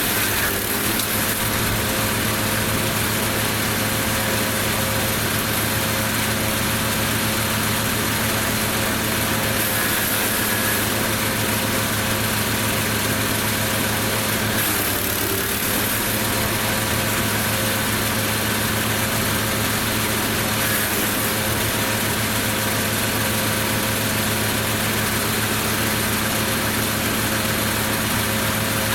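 Lumag Rambo HC15 wood chipper running steadily while it chips laurel and conifer branches: a constant engine hum under a dense shredding noise that shifts briefly now and then.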